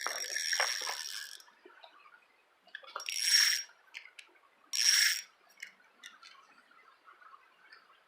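Taut fishing line being pulled back and snapped to free a snagged hook: a hissing zip with a thin high whistle that stops about a second in, then two short sharp zips about two seconds apart, with small clicks in between.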